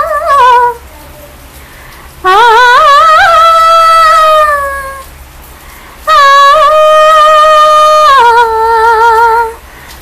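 A woman's voice singing without accompaniment in three phrases of long held high notes with ornamental pitch bends, separated by short pauses. The last phrase steps down to a lower note about eight seconds in.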